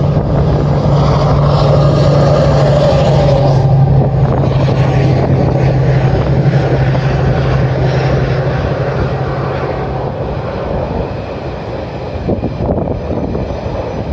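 Heavy freight locomotives working: a Class 70 diesel under power up a gradient and a Class 92 electric with its cooling fans at full blast. The loud, steady drone carries a strong low hum that fades about ten seconds in.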